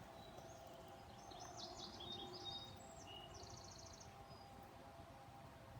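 Faint outdoor ambience with small birds chirping and one quick trill, over a low steady hum.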